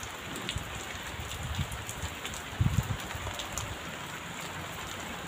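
Steady rain falling, with scattered small drop ticks and a few low thumps about two and a half seconds in.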